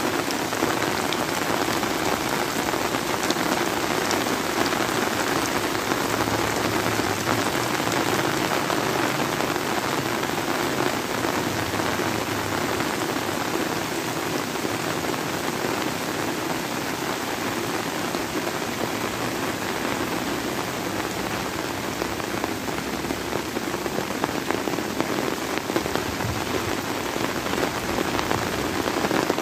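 Heavy rain pouring steadily onto flooded rice paddies and broad leaves, an even, unbroken hiss.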